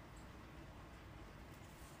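Near silence: faint room tone with a few faint, brief ticks.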